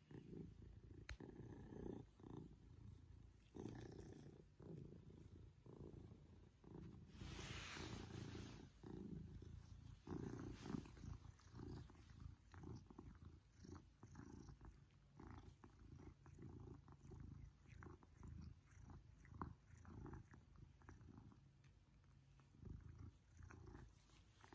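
A Maine Coon cat purring close by: a low, pulsing rumble that keeps up throughout. A brief rustle comes about a third of the way in.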